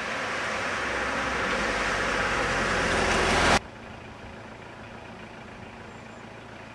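A car driving past on a wet road, the hiss of its tyres on the wet asphalt growing louder as it nears. It cuts off abruptly about three and a half seconds in, leaving only faint, steady outdoor background.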